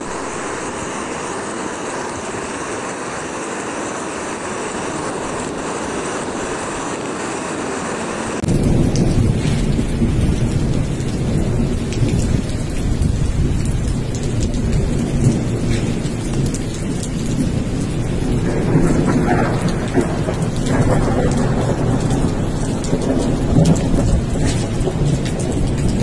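Heavy thunderstorm rain and muddy runoff rushing along a flooded street. First comes a steady hiss of rain and running water. After about eight seconds it changes suddenly to a louder, deeper rumbling noise with scattered taps.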